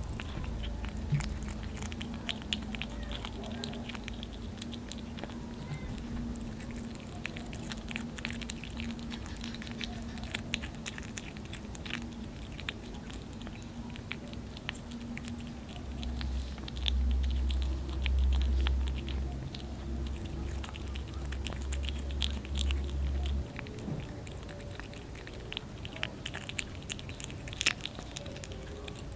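A kitten chewing and biting boiled fish: a run of irregular, rapid chewing clicks.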